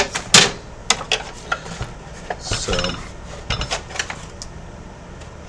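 Xbox One S console being handled with its bottom panel off: a string of plastic clicks and clatters, with a loose part rattling around inside the case.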